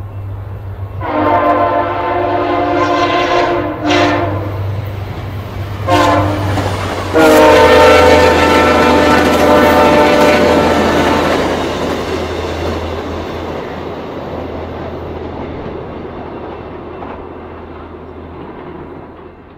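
VIA Rail passenger train sounding its multi-note horn in a series of blasts, the last one long, as it approaches and runs through the station at speed. The rumble and clatter of its passing cars then fades away.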